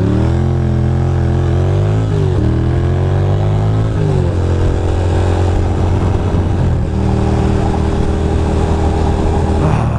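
Ducati Monster 620's air-cooled L-twin engine accelerating hard, its pitch rising and then dropping at a gear change about two seconds in and again about four seconds in, then running at a steady pitch as the bike cruises.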